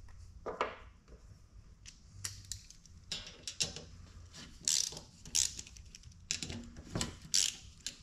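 Scattered clicks and light metallic rattles from a Mr. Heater Big Maxx blower motor and its wire fan guard being turned and shaken by hand, the motor not running. The knock that sounded like the fan hitting the cage does not show up this way.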